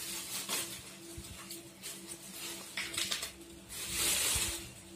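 Thin plastic shopping bag rustling and crinkling as it is handled, with a longer rustle about four seconds in.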